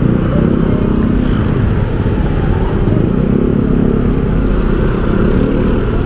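Motorcycle engine running steadily at low speed, heard close up from the rider's seat, with street traffic around it.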